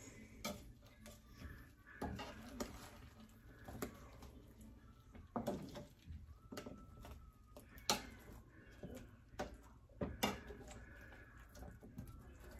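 Metal spatula scraping and knocking against an aluminium sheet pan as cooked meat patties and roasted vegetables are turned over: faint, scattered scrapes and taps every second or two.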